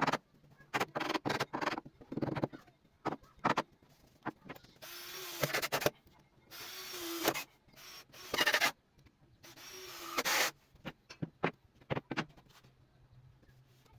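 Wood and tools being handled, with many short knocks and taps. In the middle come four longer rasping strokes of a hand tool working wood, each about a second long.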